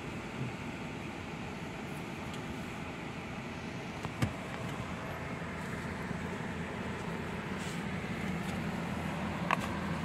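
Steady running of motor vehicles, with a single sharp knock about four seconds in and a brief short beep near the end.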